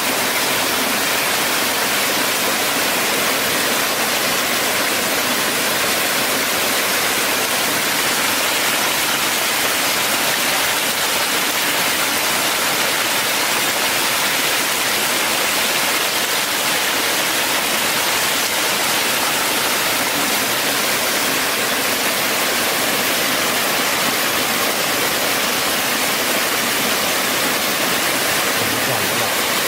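Steady, unbroken rushing water noise, even in level throughout.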